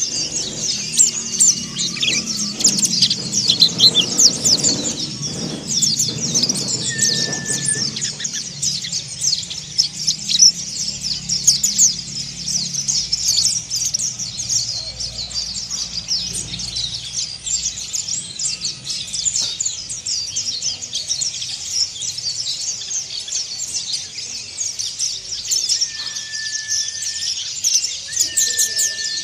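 Mountain white-eye (pleci monty) twittering non-stop in a fast, harsh, scratchy chatter of very high chirps.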